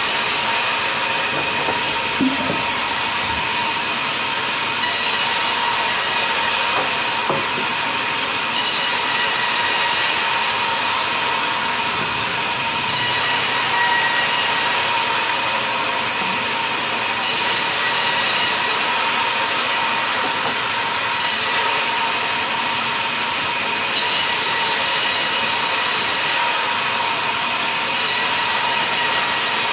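Sawmill vertical band saw running and ripping a log lengthwise: a steady high hiss with a whining tone, the hiss swelling and easing every few seconds as the cut goes on. Two short knocks of wood about two and seven seconds in.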